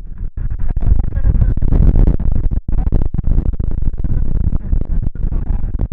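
Loud, uneven low rumble of outdoor noise, cut by several brief sudden dropouts.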